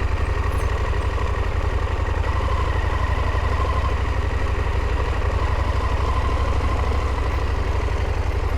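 KTM motorcycle engine running steadily at low revs, near idle, with a deep, even pulse.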